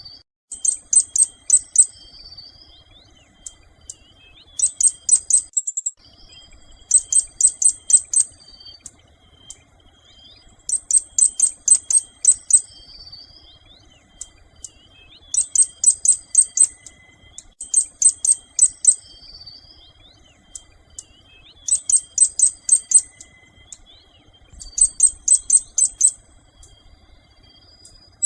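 A songbird calling in quick runs of high, sharp notes, about eight runs each a second or two long and a few seconds apart. Softer twittering from other birds sounds between them.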